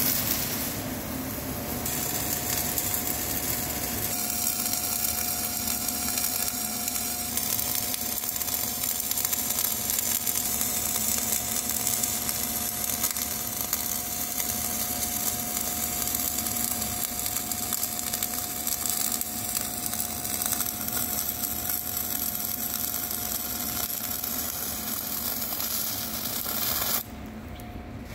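Dual-shield flux-cored MIG welding arc burning steadily as a weld run is laid with 1.2 mm wire at about 27 volts, with a thin steady tone beneath it. The sound drops away near the end.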